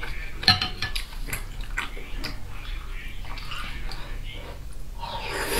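Close-miked eating of fatty braised pork in sauce: wet chewing and lip smacking, with many short sharp clicks, and a louder mouth sound near the end.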